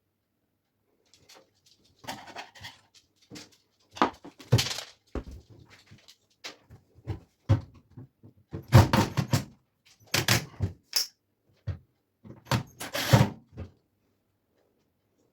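Irregular knocks, clicks and clatters of tumble dryer parts and tools being handled during a rear drum bearing replacement, with one brief high squeak about eleven seconds in.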